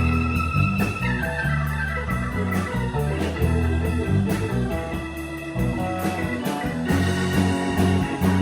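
A live rock band playing with organ, bass and drums: a busy bass line under held organ chords, with a steady drum beat.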